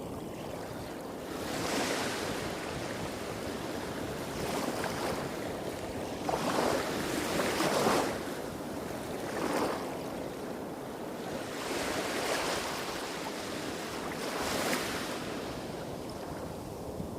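Small waves breaking and washing up a beach, several gentle swells of surf hiss, the largest about halfway through, over a steady low rumble of waves hitting rocks a few hundred metres off.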